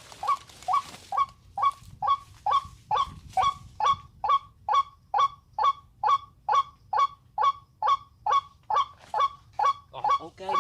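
White-breasted waterhen calling: a steady run of short, honking notes, each dropping in pitch, a little over two a second. Near the end a second overlapping call joins in.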